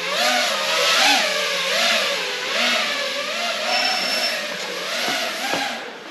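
An engine revving, its pitch rising and falling over and over, with a hiss over it.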